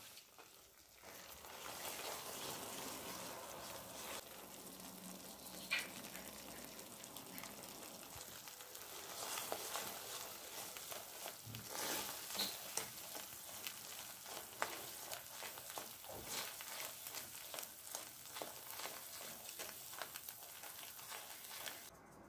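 Thick white sauce sizzling and bubbling in a hot pan as a silicone whisk stirs it, with many small pops and scraping clicks. It begins about a second in.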